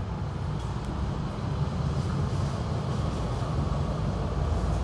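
Steady low outdoor rumble with no clear single event, growing a little louder about halfway through.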